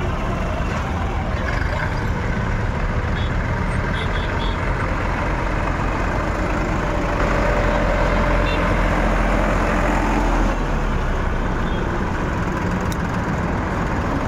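Massey Ferguson tractor's diesel engine running steadily.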